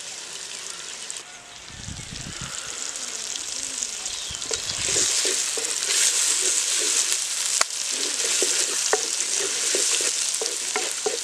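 Shallots, tomatoes, green chillies, garlic and ginger sizzling in hot oil in a clay pot, with a wooden spatula scraping and knocking against the pot as they are stirred. The sizzling grows louder about four seconds in, and the spatula knocks come often from then on.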